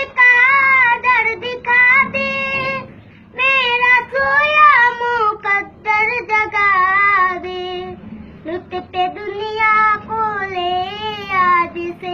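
A child singing solo in a high voice, holding long notes with wavering ornaments and melodic runs, with short breaks between phrases.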